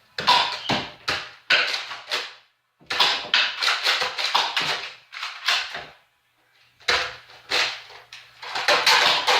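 Nerf blasters being worked and fired and foam darts striking things: a quick series of sharp clacks and knocks in three bunches, with short gaps between them.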